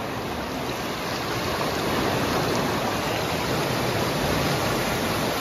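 Sea surf breaking and washing up a sandy beach: a steady rushing noise that swells slightly about two seconds in.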